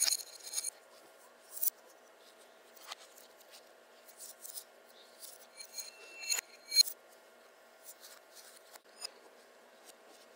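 A spoon scraping and tapping in a ceramic mixing bowl, with small ringing clinks of dishes, twice in quick pairs: at the start and about six and a half seconds in. A faint steady hum runs underneath.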